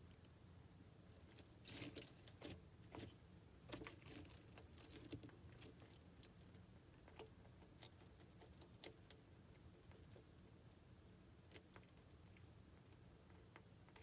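Bearded dragon biting into and chewing a salad of leafy greens and chopped vegetables: faint, irregular crisp clicks and crunches, coming in small clusters.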